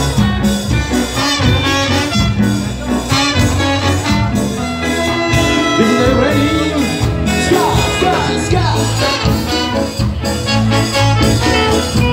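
Live ska band playing an instrumental passage: a horn section carries the melody over electric guitar, bass and drums.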